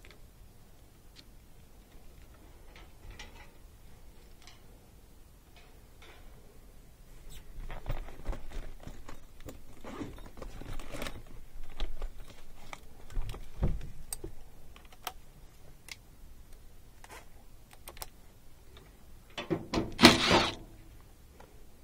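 Hands at work on an air handler: scattered clicks, rattles and knocks of tools and sheet-metal parts being handled, busiest in the middle, with a louder rattle and scrape lasting about a second near the end.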